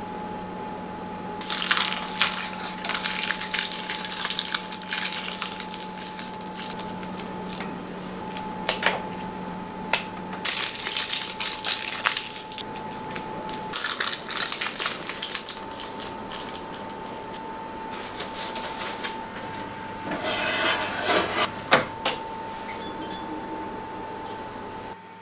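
Aluminium foil crinkling in bursts as it is wrapped and pressed around a raw pigeon. Near the end come a few short electronic beeps from an oven's touch control panel.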